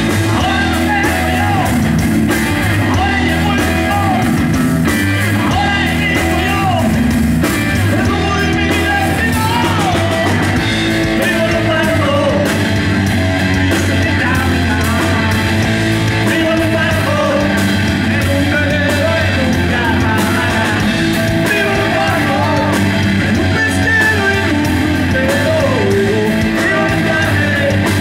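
Live rock band playing loud and steady: electric guitar, electric bass and drum kit, with a man singing lead over them.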